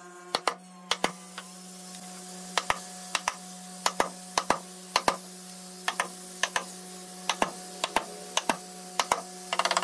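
Hammer driving nails into a wooden desktop panel: sharp knocks, often in quick pairs, roughly two a second, over a steady low hum.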